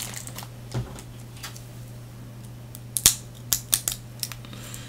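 A few sharp clicks and taps of small objects being handled on a tabletop, one early and a cluster about three to four seconds in, over a steady low electrical hum.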